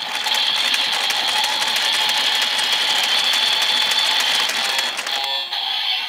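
DX Evol Driver toy belt being cranked, its side handle ratcheting in a fast run of clicks while the belt plays its electronic sound-effect music through its small speaker. The cranking and music stop about five seconds in.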